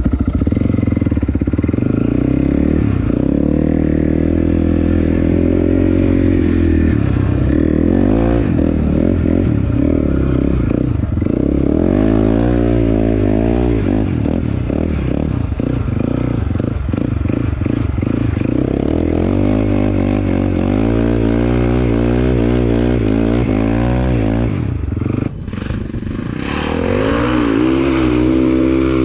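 Sport ATV's single-cylinder four-stroke engine, ridden hard over sand and heard close up from the quad itself, with the revs rising and falling constantly as the throttle is worked. About 25 seconds in the sound briefly drops, then climbs again into a sustained rev.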